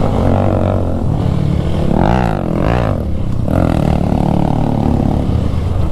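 Single-cylinder motorcycle engine running on an off-road trail, its pitch rising and falling with the throttle around the middle.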